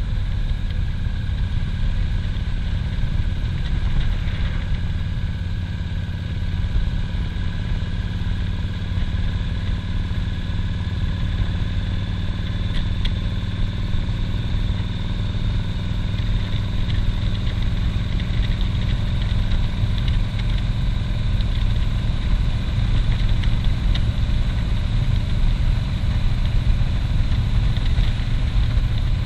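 Cruiser motorcycle running steadily at road speed: a low, even engine rumble with a faint steady whine above it.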